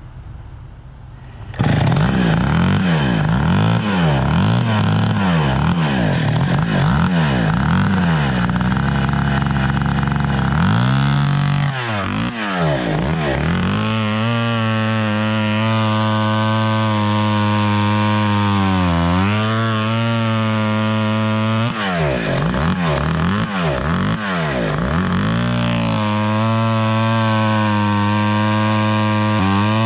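Vintage Stihl 031 two-stroke chainsaw running on only the front of its two stacked carburetors, with the rear carb shut down. It idles briefly, then is throttled up about two seconds in and cuts into a log. Engine speed wavers up and down at first, then holds steadier through the cut with a few dips.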